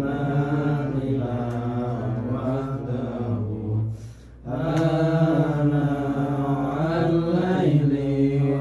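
Male voices chanting an Islamic devotional recitation in long, drawn-out phrases. They break off briefly about four seconds in, then resume.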